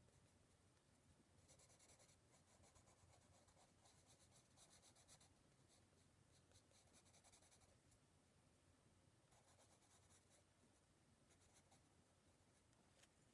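Graphite sketching pencil scratching faintly on sketch-pad paper in quick, short shading strokes, coming in several separate runs about a second long.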